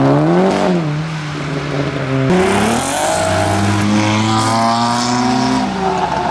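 Modified cars, a Mk6 Volkswagen Golf GTI first, accelerating away one after another, their exhaust notes rising with the revs. The note drops sharply about two seconds in and then climbs again, over the hiss of tyres on a wet road.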